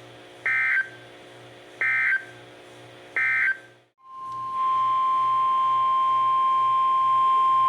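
NOAA Weather Radio EAS/SAME digital data: three short, screechy data bursts about 1.3 seconds apart, the end-of-message code closing one warning. About four seconds in, the steady 1050 Hz warning alarm tone starts and holds, signalling the next severe weather warning.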